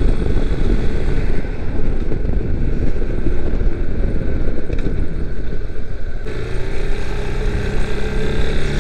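Yamaha Serow 250's air-cooled single-cylinder engine running under way, mixed with wind buffeting on the microphone. About six seconds in the wind noise drops suddenly and the engine's steady tone comes through clearly, falling slightly in pitch as the bike eases off.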